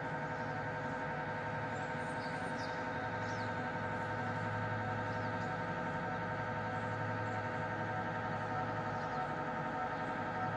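MRI scanner running a scan inside a mobile MRI trailer, heard from outside: a steady multi-tone buzzing drone over a low hum.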